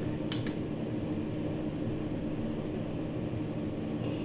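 Steady hum of a small motor or fan with one constant low tone. About half a second in, a couple of light clinks as a ladle knocks against a metal canning funnel while jam is poured through it.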